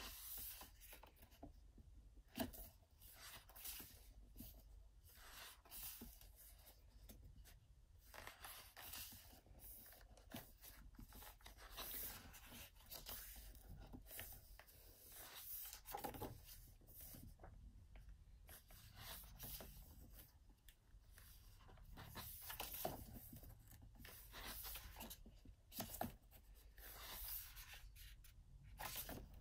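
Pages of a photobook being turned and smoothed flat by hand: quiet, repeated paper swishes and rustles, with a few soft taps.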